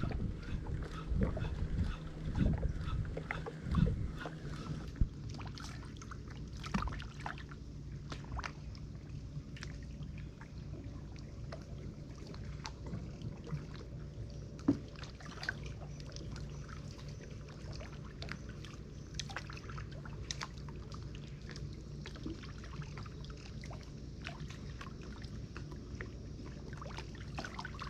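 Small sounds in and around a wooden canoe on the water: scattered sharp clicks and knocks, a few louder thumps in the first few seconds, over a steady low hum.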